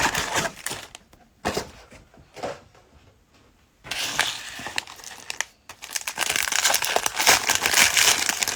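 Cellophane wrappers of football card cello packs crinkling and tearing as packs are ripped open and handled. Crinkling at the start, a near-quiet pause a few seconds in, then steady, dense crinkling from about four seconds on.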